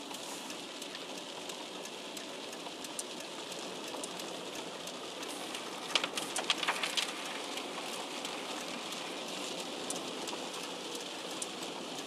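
Steady wet hiss of a car driving on a rain-soaked road in light rain, heard from inside the cabin, with a short run of louder clicks about six seconds in as the windscreen wipers sweep.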